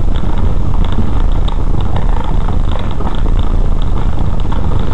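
Car driving over a cobblestone street, heard from inside the cabin: a steady low rumble of tyres and engine with light, irregular rattling.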